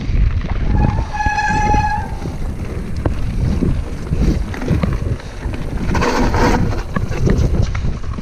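Wind buffeting the camera microphone while a mountain bike rolls and rattles over a loose gravel and rock trail, with scattered clicks and knocks from the bike. About a second in, a high, steady squeal lasts about a second.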